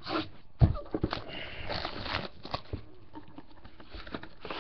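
A utility knife slitting the shrink wrap on a sealed trading-card box, with plastic crinkling and blade scraping on cardboard. There is a sharp knock about half a second in and a few small clicks as the box is handled.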